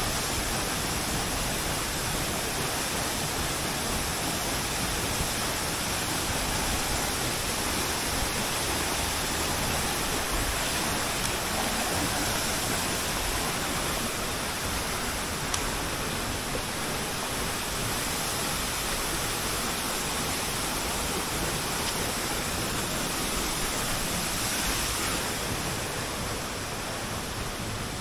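Steady rush of a waterfall and the shallow stream running below it, easing off slightly near the end.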